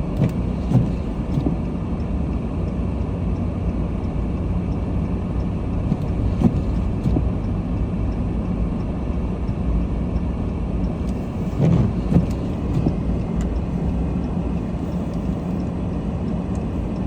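Steady road and engine noise of a moving car, heard from inside the cabin, with a few brief knocks.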